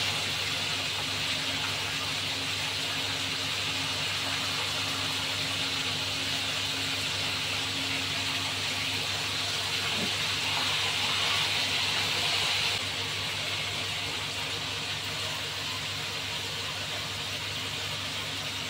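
Whole squid frying in hot oil in a pan, a steady sizzle, with a faint low hum underneath.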